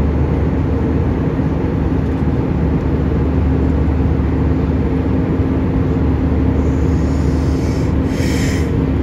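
Steady cabin noise of an airliner in flight, the jet engines and rushing air heard from inside the cabin as a loud, even drone with a deep hum and a few steady low tones. A brief higher hiss comes in about eight seconds in.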